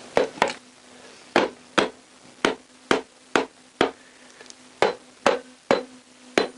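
Sharp knocks, about two a second in short runs, over a steady low hum that comes in about a second and a half in.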